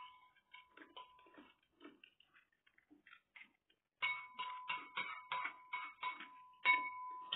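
Eating sounds: a spoon clicking and scraping against a plate, with chewing clicks. The clicks are irregular, sparse and quiet at first, then denser and louder from about four seconds in, with a faint steady tone under them.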